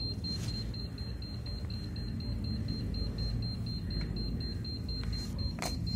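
DC bench power supply beeping a rapid string of short high beeps, about four a second, the sound that shows the connected phone battery is taking charge during boosting.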